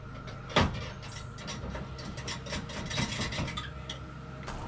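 Metal clinks and clicks from the chain turnbuckles on a trailer-hitch extension being loosened by hand, with one sharp clack about half a second in, over a low steady hum.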